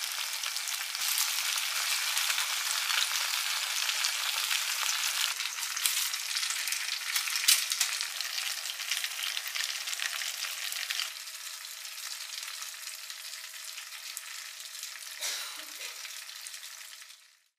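Yellow croakers pan-frying in a generous amount of oil: dense sizzling with sharp crackles and pops. About eleven seconds in the sizzle drops to a quieter level with a faint steady hum under it.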